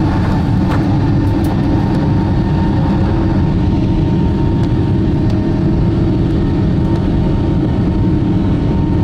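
Boeing 777's Pratt & Whitney engines heard from inside the cabin at takeoff thrust: a loud, steady low rumble with a high whine held over it, as the takeoff roll gets under way.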